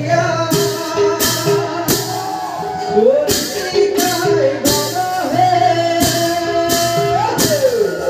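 Live song with a held, gliding vocal melody over a steady percussion beat with bright, cymbal-like strikes: a Bhaona devotional song set to a tea-garden (bagania) folk tune.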